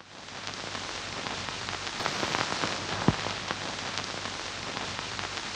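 Steady crackling hiss, dense with small clicks, with a faint low hum underneath. It fades in at the start and has one sharper pop about three seconds in.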